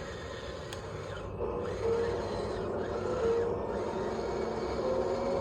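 Radio-controlled construction model's small electric motors whining in short spells, each tone edging slightly upward in pitch, over a steady mechanical hiss.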